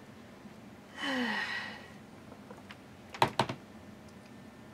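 A breathy sigh about a second in, then two sharp knocks about three seconds in as the clothes iron is set down on its heel on the table.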